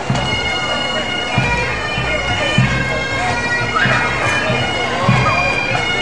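Pipe band playing on the march: bagpipes with steady drones under the chanter melody, and bass and snare drum beats underneath.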